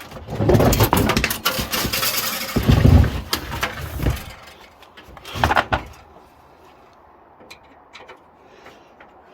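Hard clattering and scraping of metal and plastic parts being wrenched and handled during a desktop computer teardown: a dense run of knocks for about four seconds, one more short burst about five and a half seconds in, then a few light clicks.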